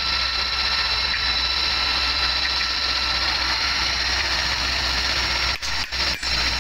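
Steady mechanical drone of running machinery, with a high hiss and a low hum. It cuts out briefly three times near the end.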